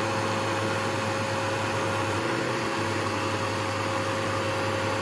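Deerma C1900 cordless mite vacuum cleaner running steadily at its higher power level, a motor whine over a constant rush of air.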